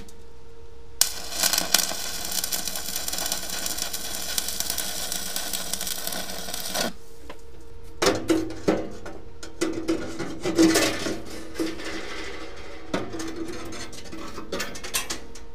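Electric arc welding crackling steadily for about six seconds, starting about a second in, as angle-iron brackets are welded inside a steel tank. Then sheets of expanded-metal grate clank, rattle and scrape against the steel as they are set in onto the brackets.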